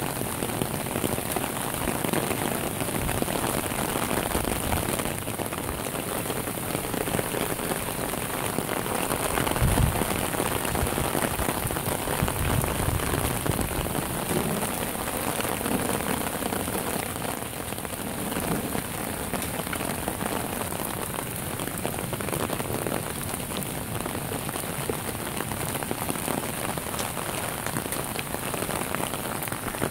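Heavy downpour falling steadily on grass, leaves and standing water, enough rain to flood the yard. A short low thump comes about ten seconds in.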